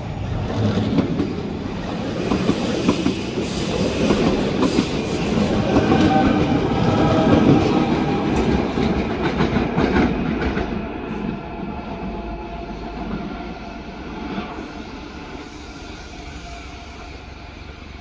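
Rhaetian Railway Capricorn (ABe 4/16) electric multiple unit rolling over the station points, its wheels clattering over the switches. It grows louder to a peak about halfway through, then fades.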